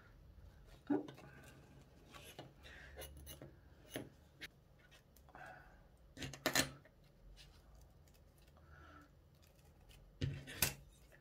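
Quiet handling of stiff sinamay fabric, rustling, with a few sharp clicks and taps of plastic sewing clips being picked up off a cutting mat and clipped onto it. The loudest clicks come in pairs, about halfway through and near the end.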